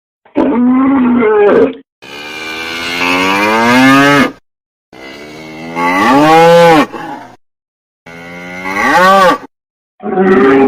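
Cattle mooing: about five separate moos, each a second or two long, some rising and then falling in pitch, with short silent gaps between them.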